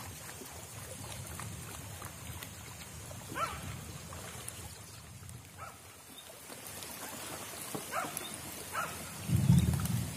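Light rain falling on a river, a steady hiss, with a few short, distant animal cries that bend up and down in pitch. A strong low rumble comes in near the end and is the loudest part.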